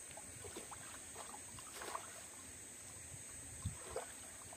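River water splashing and dripping as a nylon fishing net is hauled up out of the water by a man wading in it, in irregular small splashes with a few louder ones, the sharpest near the end.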